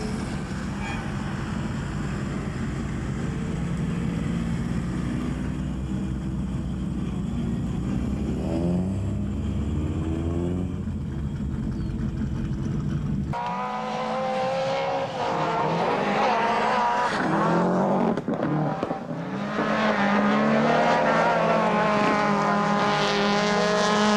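Skoda Felicia Kit Car rally car engine at full throttle, revving up and dropping back through gear changes. The sound changes abruptly about halfway through to a higher, stronger engine note that keeps rising and falling.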